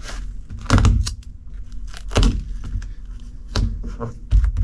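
Hands smoothing vinyl and pressing tape down along the edge of a car's package tray: about five short scrapes and rustles.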